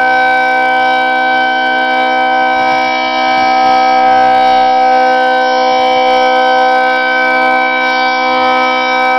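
1973 Federal Signal 2T22A dual-tone outdoor warning siren sounding its steady Alert signal: two pitches sounding together as one chord, held level without rising or falling, the loudness swelling and easing slightly as the rotating horn sweeps around.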